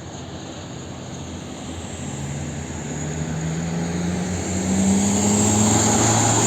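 A heavy truck's diesel engine drawing closer, growing steadily louder, its note climbing slightly, with tyre hiss building as it nears.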